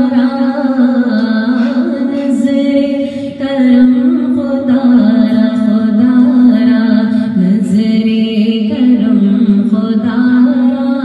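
A woman singing an Urdu manqabat (Sufi devotional song) into a microphone, holding long drawn-out notes that step from pitch to pitch.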